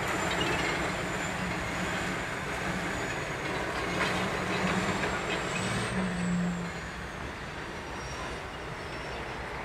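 Norfolk Southern wide-cab diesel locomotive moving slowly through the yard, its engine a steady rumble with a faint high whine that rises and falls.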